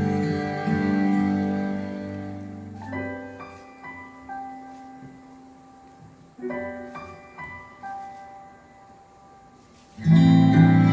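Instrumental music from the live band of a stage musical: sustained chords fade about three seconds in to sparse, quiet single notes, then the full accompaniment comes back in loud near the end.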